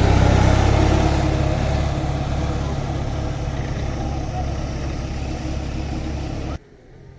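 Engine of a pneumatic tire roller running steadily while it compacts fresh asphalt, a deep hum that slowly fades and then cuts off suddenly near the end.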